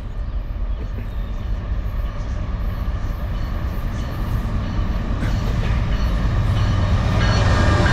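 Diesel freight locomotives, led by a Union Pacific unit, approaching on the line. Their steady engine rumble grows louder as the train draws near.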